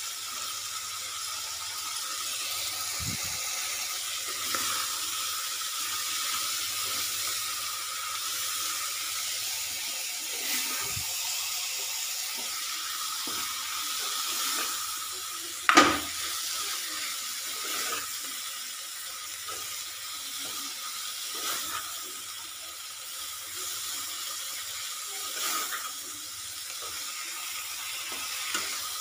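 Cabbage, peas and tomato frying in a kadai with a steady sizzle, while a spatula stirs and scrapes the vegetables against the pan with scattered small clicks. One sharp knock of the spatula on the pan about halfway through.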